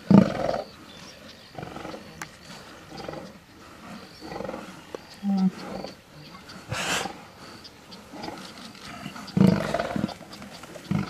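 Lions calling in a series of short, separate outbursts. The loudest come just after the start and again about nine and a half seconds in. Near seven seconds there is a sharper, hissy outburst.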